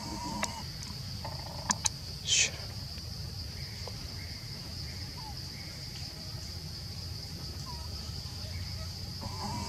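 Steady high-pitched insect buzz from the surrounding forest, with a few brief calls and sharp clicks in the first two seconds and another brief call near the end.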